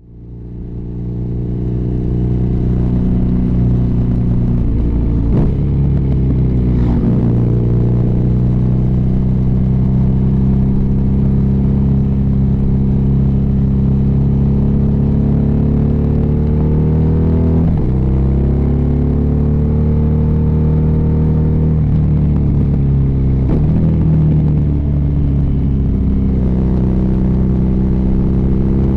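BMW R nineT's air/oil-cooled boxer twin engine running on the move. It fades in at the start, then holds a steady pitch that dips and climbs again several times as it shifts gear and picks up speed.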